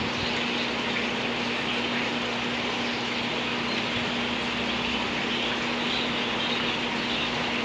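Aquarium water running steadily: water splashing from the tank's overflow chute and an air-bubbler column fizzing, over a constant hum.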